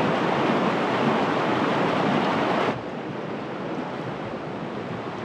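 Creek water rushing over rapids: a steady, full noise that drops suddenly to a quieter water sound nearly three seconds in.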